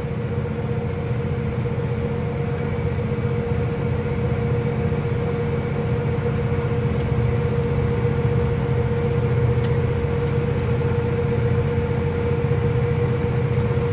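Cab noise of a John Deere 7R 310 tractor travelling down the road: the engine running steadily, with a steady whine over it.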